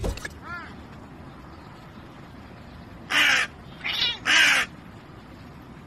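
Crow cawing three times in quick succession, harsh rasping calls about three seconds in.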